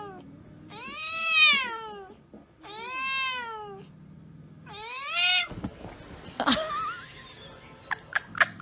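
Tabby cat meowing: three long, drawn-out meows, each rising and then falling in pitch, and a fourth that cuts off about five and a half seconds in. A few light clicks and taps follow.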